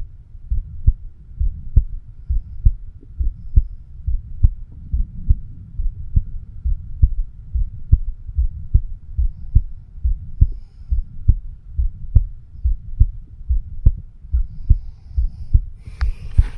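A man's heartbeat picked up through a homemade microphone stethoscope over the mitral (bicuspid) valve: steady lub-dub beats at about seventy a minute, each a low double thump. A scratchy rubbing noise comes in just before the end.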